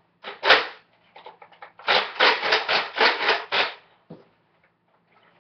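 A plastic Nerf Long Strike blaster being handled and swung about, making rubbing and scraping noises: two short scrapes near the start, then a quick run of about seven scrapes in the middle.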